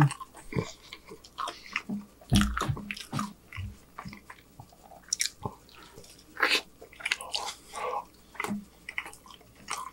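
Close-miked chewing of a mouthful of French fries: irregular wet smacks and clicks of lips and tongue.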